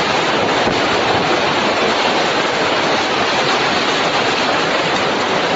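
A loud, steady rushing roar with no breaks, of the kind made by storm wind and surf.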